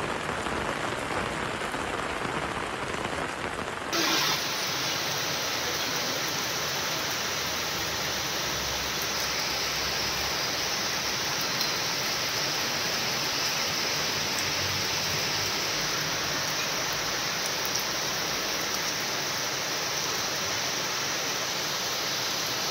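Heavy rain pouring steadily onto a road and parked cars, a continuous hiss. About four seconds in the sound changes abruptly to a brighter, fuller hiss, with a short louder burst at the change.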